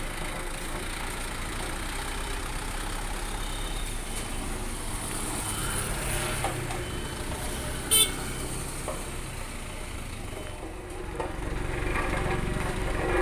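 Heavy dump truck's engine running steadily under a full load of sand and stone, getting louder near the end. A brief, loud, high-pitched sound cuts in once about eight seconds in.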